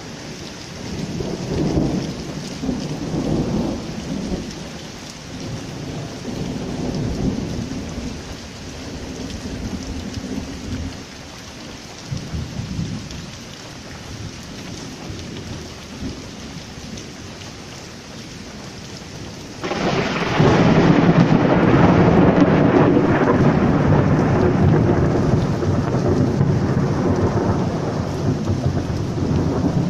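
Heavy rain pouring onto paving, with thunder rumbling in the first ten seconds or so. About two-thirds of the way through, a sudden loud thunderclap breaks and rolls on for the last ten seconds, slowly easing.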